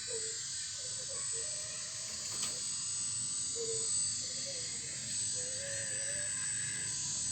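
Electric motor of a full-metal RC excavator running with a steady hiss, its whine wavering and coming and going in short spells.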